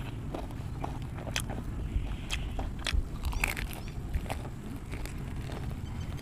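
A person biting into and chewing crispy breaded fried chicken, the coating crunching in sharp, irregular clicks.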